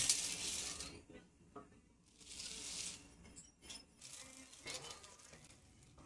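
Dry lentils, grains and dried vegetables poured from a measuring cup into a stainless steel bowl, rattling and hissing against the metal. The pour is loudest in the first second, a second shorter hiss comes a little past two seconds in, and a few light clicks follow.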